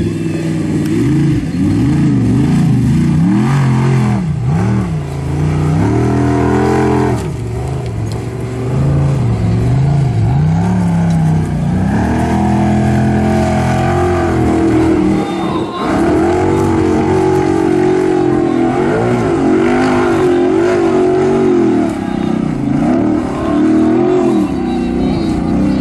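Formula Offroad hillclimb buggy's V8 engine revving hard, its pitch rising and falling over and over as the throttle is worked.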